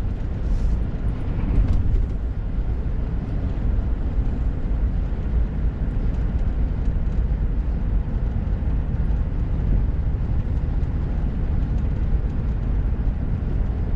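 Steady low road and engine rumble inside a pickup truck's cab while driving.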